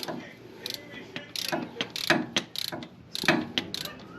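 Socket ratchet clicking in a series of short strokes, about seven, as it works on a tight oil drain plug that won't come loose.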